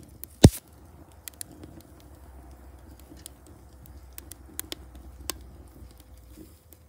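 Wood fire crackling in an iron pot, with scattered sharp pops over a steady low rumble. A loud thump about half a second in.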